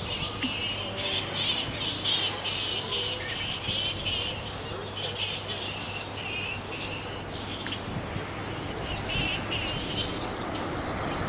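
A roosting colony of fruit bats squeaking and chattering without pause, many short, high-pitched calls overlapping, over a low steady hum.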